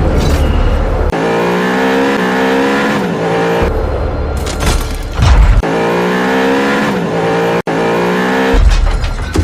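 Electronic background music with rising synth lines over a heavy bass that cuts in and out, the same phrase repeating twice.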